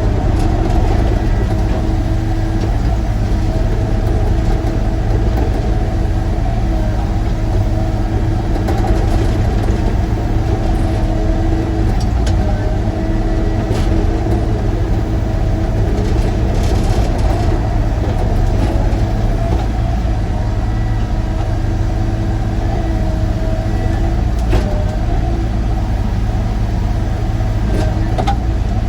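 Sany excavator's diesel engine running steadily under work, with a steady whine over the low rumble and a few faint knocks.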